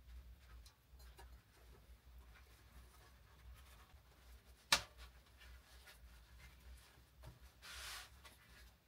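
Faint rustling of hands handling paper and flatbread on a wooden table, with one sharp click about halfway through and a brief louder rustle near the end.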